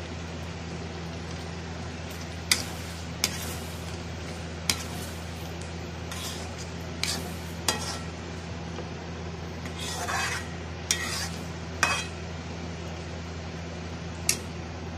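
A metal spatula stirring thick curry gravy in a steel kadai, striking and scraping the pan with about nine sharp clinks at irregular intervals. Underneath there is a steady low hum and a faint sizzle from the simmering gravy.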